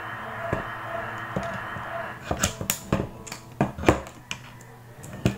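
Small metal parts handled against an aluminium handlebar: a handguard clamp and its bolt clicking and knocking against the bar in a run of sharp, separate clicks over the second half, the loudest about four seconds in. A steady hiss comes before them for about two seconds.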